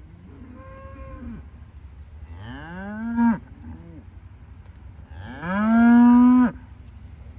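Cattle mooing, three moos: a faint one about half a second in, a rising one about two and a half seconds in, and the loudest and longest about five seconds in.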